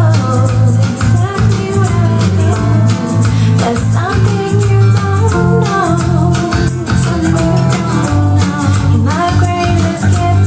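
A song with a singing voice, plucked guitar and a steady, repeating bass line, played back through a Sony SS-TS57 tower speaker, a two-way bass-reflex design with a 130 mm cone woofer.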